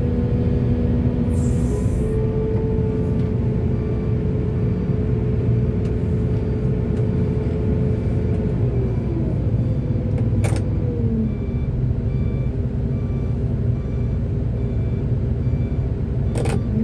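Heavy diesel engine of earthmoving machinery running steadily; its pitch drops about nine seconds in and picks up again a couple of seconds later. Two short, sharp noises cut through it, about ten seconds in and again near the end.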